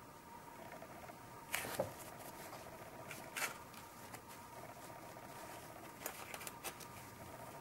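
Flat paintbrush scratching and dabbing acrylic paint onto black paper in a few short strokes, the loudest pair about one and a half seconds in, over a faint steady hum.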